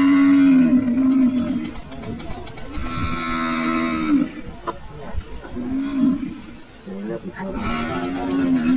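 African buffalo bellowing in distress while lions attack it. It gives about four long, wavering bellows, one after another.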